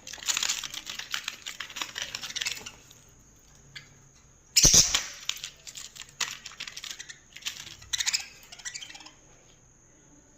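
A rapid patter of small clicks and taps, dense at first and then more scattered, with one loud knock about four and a half seconds in; it goes quiet near the end.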